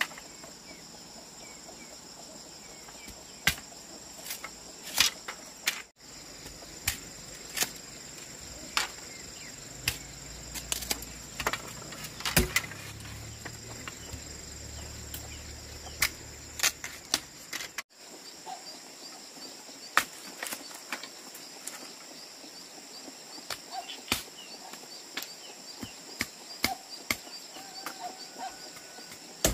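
Steady chirring of crickets or other insects, with irregular sharp knocks like chopping on wood.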